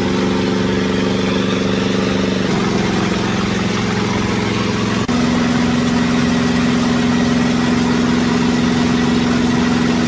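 Old generator set running steadily after repair. The engine note shifts slightly about a quarter of the way in, and again after a brief dip about halfway.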